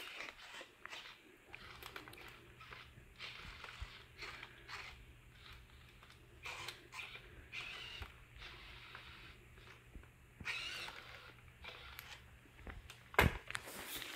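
Sony Aibo ERS-7 robot dog's joint motors running in short, irregular bursts with clicks as it shifts its legs and head. A low steady hum runs under it, and a single loud knock comes near the end as its body comes down onto the floor.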